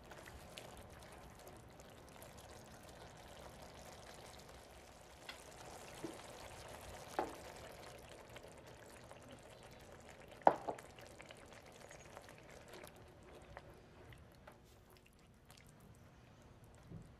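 Tomato and spinach sauce simmering in a cast iron skillet as heavy cream is poured in and stirred with a spatula. A few sharp knocks of the spatula on the pan, the loudest about ten seconds in.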